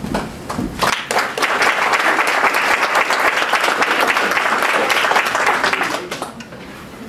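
Audience and board members applauding. The clapping starts about a second in and dies away near the end.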